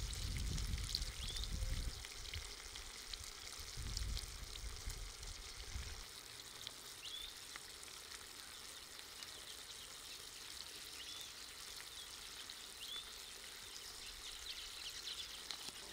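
Water poured from a mug splashing over hands at first, then a pot of sauce simmering over wood coals with a faint, steady sizzling hiss. A few short, high rising chirps sound through it.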